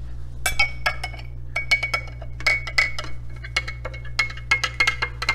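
A metal spoon stirring salt into water in a cut-glass tumbler, clinking against the glass again and again, each clink ringing briefly.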